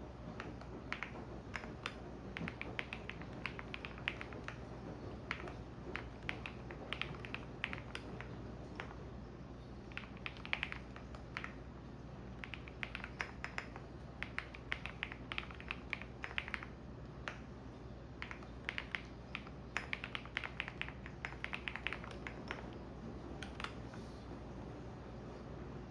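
Computer keyboard typing in bursts of rapid keystrokes with short pauses between them, over a steady low hum from a running washing machine.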